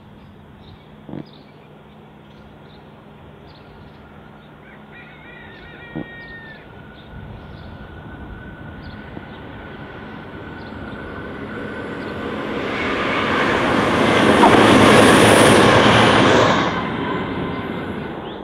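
Diesel passenger train approaching along the line, growing steadily louder to a loud rush as it passes, then falling away quickly. A short bird chirp sounds about five seconds in, over faint outdoor background.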